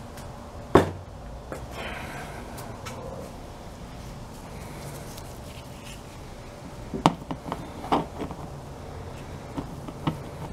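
Gloved hands handling things on a plastic tote lid: one sharp knock about a second in, then a few light taps and clicks near the end as paint stripper is dabbed onto diecast toy cars with a sponge.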